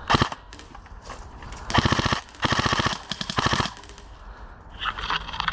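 Airsoft electric rifle firing on full auto: a short burst at the start, then two longer bursts of rapid shots a little apart, each about half a second to a second long.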